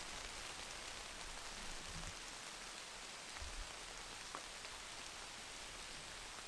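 Light rain falling on dry leaf litter and trees: a soft, even hiss with scattered faint drop ticks. A few faint low thumps come about two and three and a half seconds in.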